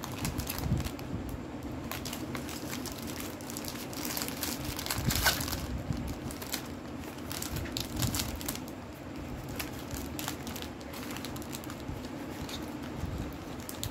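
Foil-lined plastic wrapper of a wafer biscuit pack crinkling and rustling as it is torn and peeled open by hand, with a busier burst of crackling about five seconds in.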